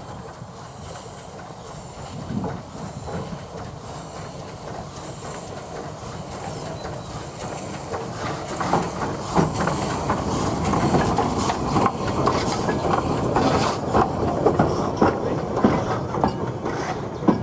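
A train approaching and growing steadily louder. From about halfway through, its wheels click sharply over the rail joints, more and more often.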